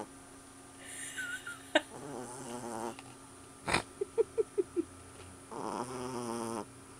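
Sleeping puppy snoring: two drawn-out snores, the first with a high whistling note in it. Between them come a sharp click and a quick run of about six short squeaks.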